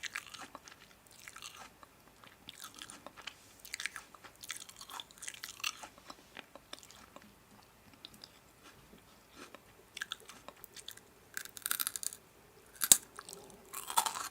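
Close-up crunching and chewing of crisp food, in irregular bites with short pauses, growing denser and louder near the end.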